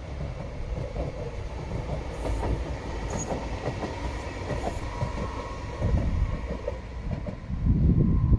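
CAF 6000-series electric metro unit running past, its wheels clattering on the rails in a steady rattle, with a thin steady whine joining in about halfway through. A loud low rumble swells up near the end.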